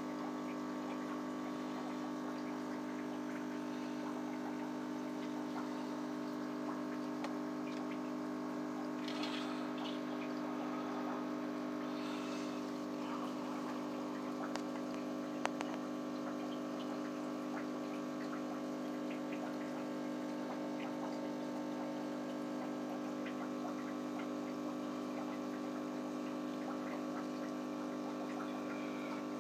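Aquarium pump humming steadily, with two short noises about nine and twelve seconds in.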